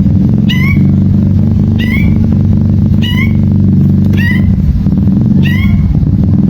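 Long-tailed shrike (cendet) giving a short, harsh, downward-curving call five times, about once every second and a bit, over a loud steady low hum.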